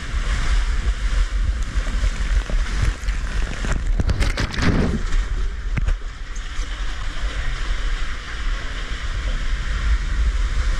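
Wind buffeting the microphone over a steady rush of water from the waterpark's slides and pools, with a brief louder burst of noise about four to five seconds in.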